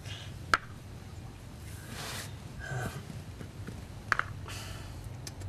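Chess pieces clicking on a board: one sharp click about half a second in and a quick double click about four seconds in, with soft rustles between over a steady low hum.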